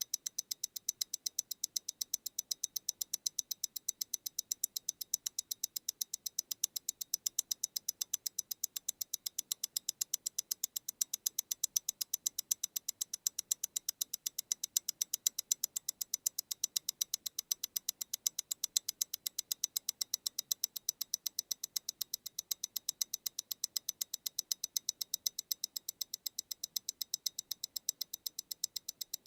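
MEMORIGIN Stellar tourbillon wristwatch movement ticking steadily at 28,800 vibrations per hour, eight crisp, even ticks a second.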